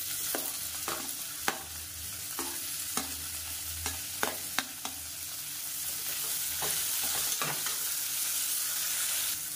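Sliced onions sizzling in hot oil in a pressure cooker, with repeated sharp clicks of a metal slotted spoon striking and scraping the pot as the onions are tipped in and stirred. The clicks come about twice a second at first and thin out in the second half.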